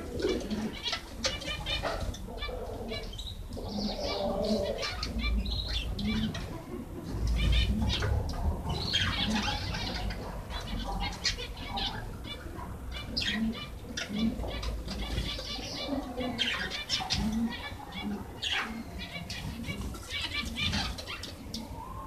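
A flock of zebra finches calling: many short, nasal chirps overlapping one another throughout, over a low rumble that swells about seven seconds in.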